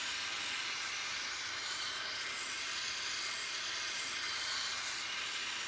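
Small oxy-fuel jeweller's torch flame hissing steadily as it heats the edge of a silver cuff.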